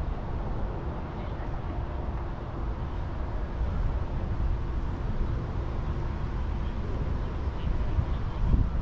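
Steady low rumble of outdoor background noise, with a faint steady hum beneath it and no distinct single event.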